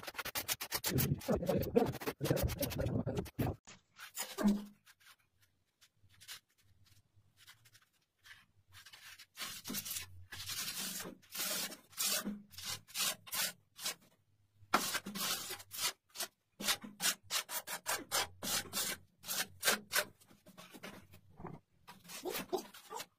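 Flat steel trowel rubbing and scraping over mosaic tile sheets and tile adhesive, bedding the sheets in. It comes in quick repeated strokes: a busy run at first, a lull, then more strokes from about nine seconds in.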